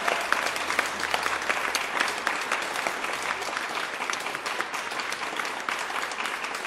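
Audience applauding: a dense patter of many hands clapping that slowly gets quieter.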